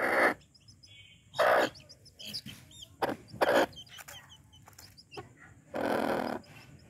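Hens squawking and clucking: five loud harsh squawks, two of them close together in the middle and the longest near the end, with softer chirps between.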